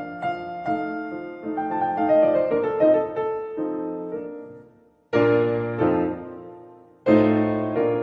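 Background piano music: a melody of single notes, then full chords struck about five and seven seconds in, each left to ring out and fade.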